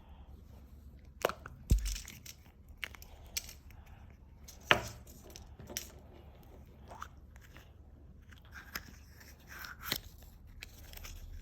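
Scattered crunches, crackles and sharp snaps as a candy surprise egg and its wrapping are handled and opened, with loud snaps about a second and a half in and near five seconds.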